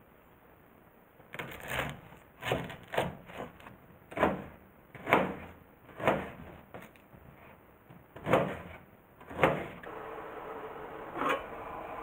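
Folding knife chopping through an onion onto a plastic cutting board, about ten separate strokes over eight seconds. Near the end a gas burner under an aluminium mess tin runs with a steady hiss, with one knock.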